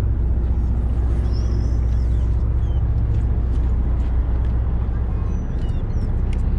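Sportfishing boat's engine running with a steady low drone, and a few faint high seabird calls over it.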